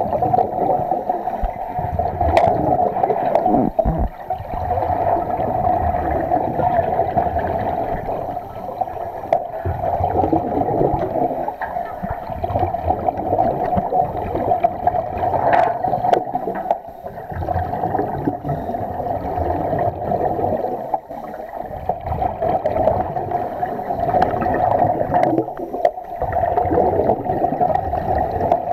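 Muffled underwater sound through a camera housing: a steady hum and rush of water with bubbling from divers' scuba regulators, easing and swelling every four to five seconds with their breathing.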